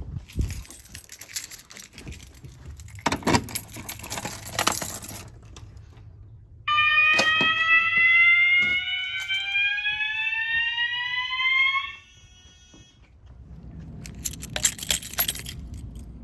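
A System Sensor fire alarm horn set to slow whoop sounds one rising whoop lasting about five seconds, then cuts off sharply: a brief signal during a Simplex 4002 panel walk test. Bursts of rustling and clicking come before and after it.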